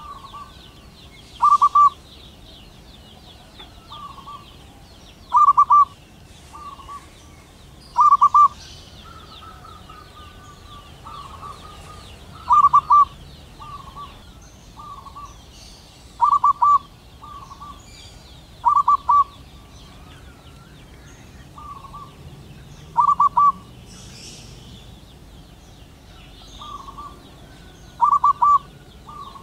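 Zebra dove (perkutut) calling: short bursts of quick staccato cooing notes repeated every few seconds, with fainter similar calls in between.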